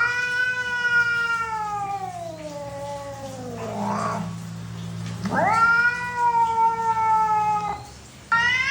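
A pet animal giving long, drawn-out yowling howls, each sliding slowly down in pitch: a long call of about four seconds, a second shorter one, and a third starting near the end.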